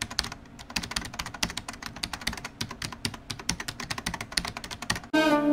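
Rapid computer keyboard typing: quick, irregular clicks, several a second. Near the end it stops and music with bowed strings begins.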